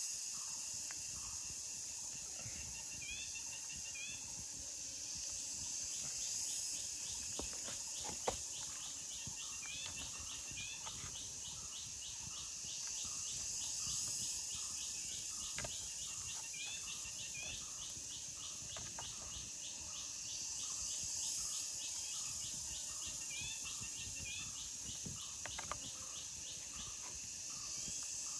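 Forest ambience: a steady high insect drone with an evenly repeating insect pulse, and a bird's short rising chirps, often in pairs, every several seconds. Two sharp clicks stand out, about eight seconds in and near the end.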